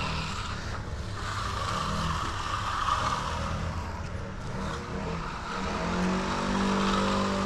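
Steel Fresno trowel blade sliding back and forth over fresh, stiffening concrete, a continuous scraping swish as the surface is sealed. A low steady hum runs underneath, firmer from about six seconds in.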